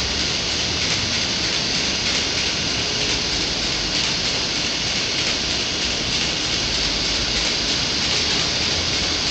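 Steady, even hiss of outdoor background noise with no distinct sounds and no thunder.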